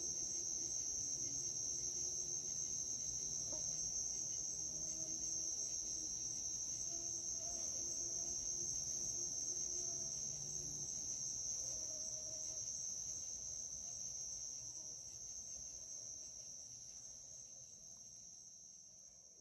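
Night chorus of crickets, a steady, unbroken high trill, fading out over the last several seconds.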